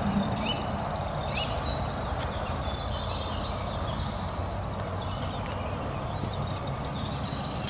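Outdoor ambience by a pond: a steady rush with a low rumble, a few short bird chirps in the first half, and stretches of fast, faint high-pitched ticking.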